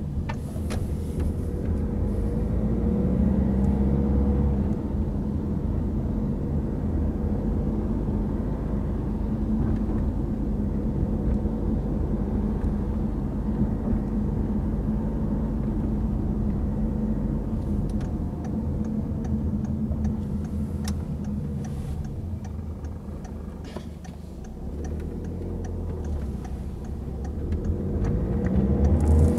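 Peugeot 3008 engine and tyre noise heard from inside the cabin while driving, with the engine note rising as the car picks up speed a few seconds in, easing off around twenty-four seconds in, and rising again as it pulls away near the end.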